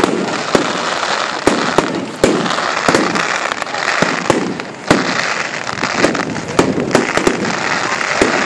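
Fireworks going off in rapid succession: sharp bangs several times a second over a steady crackle, with no pause.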